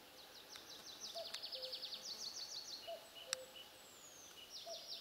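Wild birdsong: a songbird delivering rapid trills of short, high notes in two runs, with a gap in the middle, while a faint lower two-note call repeats about every second and a half.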